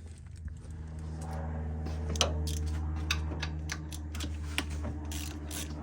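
Light metallic clinks and ticks of hand tools and metal parts being handled, scattered and irregular, over a steady low hum.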